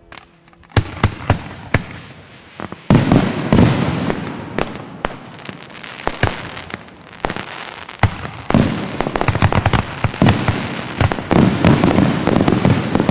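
Aerial fireworks display: shells bursting with sharp bangs, a few separate reports about a second in, then from about three seconds on a dense run of rapid, overlapping bangs.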